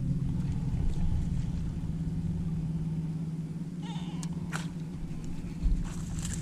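Steady low hum of a bow-mounted electric trolling motor running at one pitch. About four seconds in come brief scratchy clicks, and near the end there is a single low thump on the boat deck.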